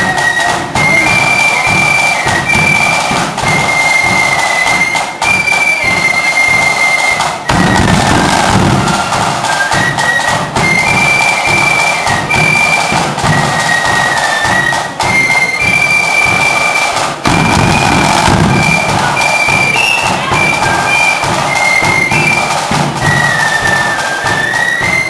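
Flute band playing: a high flute melody stepping up and down over rapid snare drum strokes and a bass drum beat.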